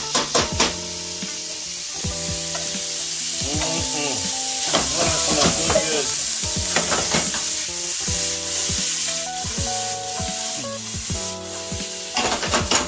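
Chopped celery, green pepper and onion frying in hot bacon grease in a stainless steel skillet, a steady sizzle. A few sharp metal clanks come near the start as the vegetables are tipped in from a metal bowl. Music plays underneath.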